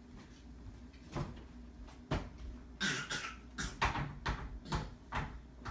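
A string of light knocks and taps on a tabletop, with a short scrape about three seconds in, as Play-Doh pieces are pressed and handled. The taps come irregularly, several to a second near the end.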